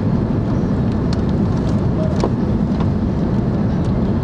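Jet airliner cabin noise: a steady, loud low rumble of engines and airflow heard from inside the passenger cabin, with a few faint clicks and rattles.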